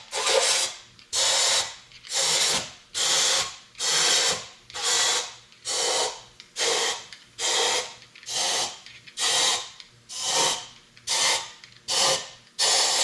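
Compressed-air blow gun blowing the engine block's surface clean in short hissing blasts, about one a second, repeated over a dozen times.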